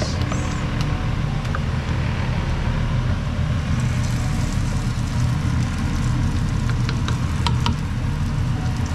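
Waffle batter sizzling on a hot round waffle iron, the hiss growing about midway as more batter spreads on the plate, with a few light clicks of the utensil against it. A steady low rumble runs underneath throughout.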